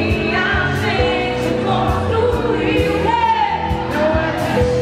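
Live band music: singing over a drum kit keeping a steady beat.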